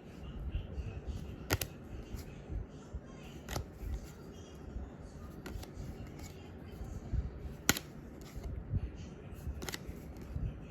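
Pokémon trading cards being handled during a booster pack opening, with sharp clicks and snaps every couple of seconds, the loudest about two-thirds of the way through.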